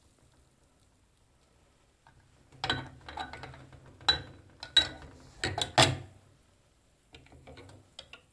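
Clicks and knocks from a water electrolysis tester being handled: it is lifted by hand and shifted in two glass tumblers while its electrodes stand in the water. A quick run of sharp clicks starts about two and a half seconds in, and a few fainter ones come near the end.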